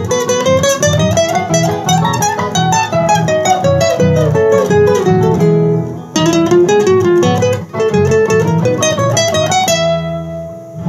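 Solo classical guitar fingerpicked in a gato cuyano, with quick melodic runs climbing and falling over bass notes. It thins briefly about six seconds in, then the runs resume and end on notes left ringing near the end.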